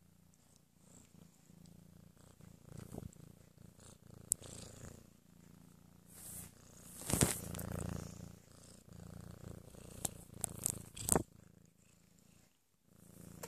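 Black-and-white cat purring steadily, right up against the microphone. A few sharp knocks and rubbing sounds break in, loudest about seven seconds in and again in a quick cluster near eleven seconds.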